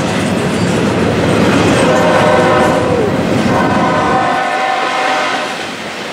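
Double-stack intermodal well cars rolling past at speed, their wheels rumbling over the rails. Long steady tones come and go over the rumble, the first ending in a short downward slide, and the low rumble thins out about four seconds in.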